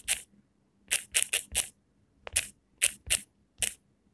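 Typing on a smartphone's on-screen keyboard: a dozen or so quick, sharp key-tap clicks at an irregular pace, one for each keypress.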